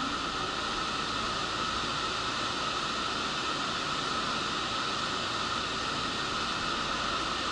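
Steady rushing noise of the ventilation on an underground subway platform, with a faint steady whine in it.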